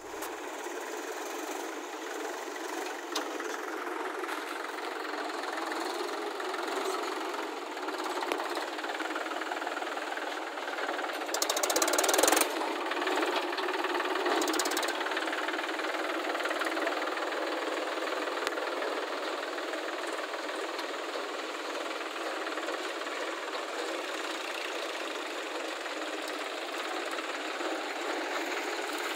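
Mahindra tractor's diesel engine chugging steadily as it hauls a fully loaded trolley through mud, with a brief louder rush of noise about twelve seconds in.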